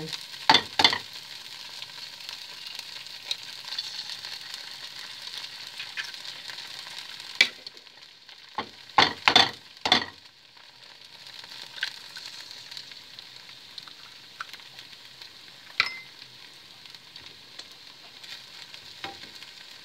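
Crumpet pieces and mozzarella sizzling steadily in a hot frying pan as two eggs are cracked and dropped in: a cluster of sharp taps about half a second in and another about halfway through, from the eggs being cracked against the pan.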